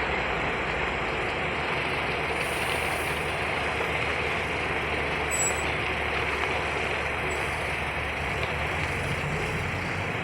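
Steady rushing roar of a fire whirl, an unbroken wash of wind noise with a low rumble underneath.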